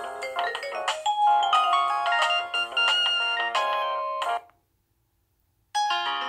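Nokia 6085 mobile phone playing its preloaded ringtones: a bright multi-note tune ends about four seconds in. After just over a second of silence, the next ringtone starts near the end.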